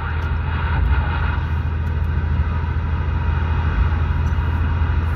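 Steady road and engine rumble heard inside a vehicle cabin at highway speed, with an even hiss over it.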